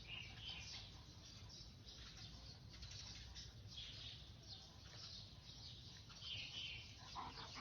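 Faint, scattered bird chirps over a low steady hum.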